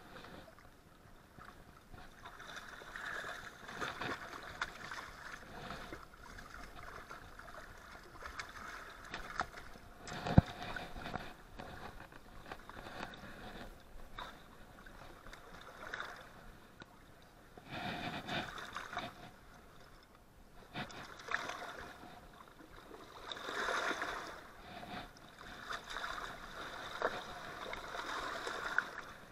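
Small waves lapping and sloshing against a rock bank, swelling every few seconds. A single sharp knock comes about ten seconds in.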